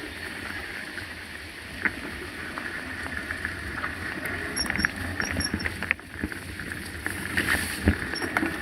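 Mountain bike rolling over a rough trail: a steady rolling rush with scattered clicks and rattles from the bike, growing louder in the second half.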